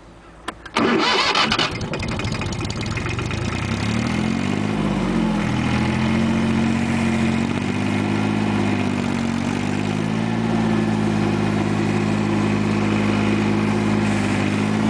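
Small diesel farm tractor engine restarted after stalling. The starter cranks about a second in and the engine catches almost at once. Its speed wavers briefly a few seconds later, then it settles into steady running.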